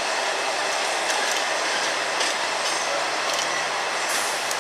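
V/Line N class diesel-electric locomotive, with its EMD V12 two-stroke engine, moving slowly along the track as it runs around its train: a steady engine and rail noise with a few scattered clicks.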